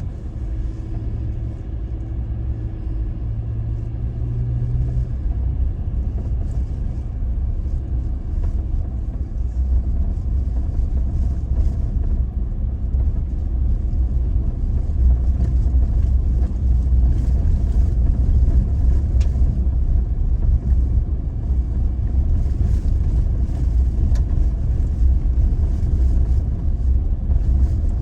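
Toyota Tacoma pickup driving: a steady, deep rumble of engine and road noise that grows a little louder over the first several seconds, with a steady engine hum that fades out about five seconds in.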